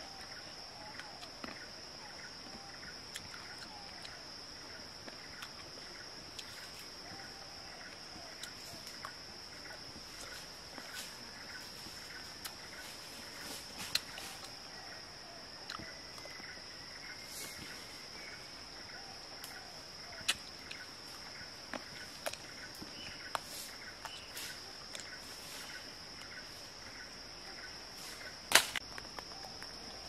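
Steady high-pitched insect drone with scattered small clicks and smacks of someone chewing and sucking on juicy grapes. One sharper click near the end is the loudest sound.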